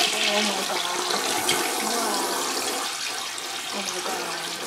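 Toilet flushing: water rushing and swirling down the bowl, loudest as it starts and easing off slowly.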